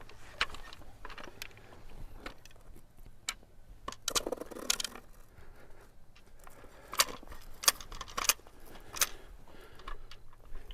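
Faint, irregular clicks and light knocks of hand work as an oak log is measured and marked for cutting into rounds, with a small cluster of sharper clicks near the end.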